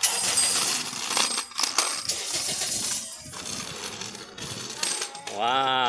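Plastic wheels of a child's three-wheeled kick scooter rolling over rough concrete: a continuous rattling clatter that is loudest for the first three seconds, then fades as the scooter moves away.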